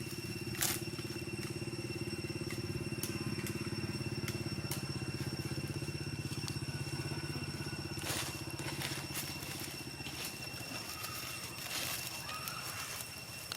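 A small engine running steadily, with a few sharp clicks over it.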